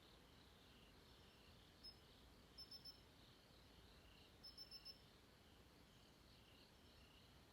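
Faint night chorus of crickets and other insects chirping steadily. Over it a nearer, higher chirp sounds once, then three quick chirps, and a couple of seconds later four quick chirps.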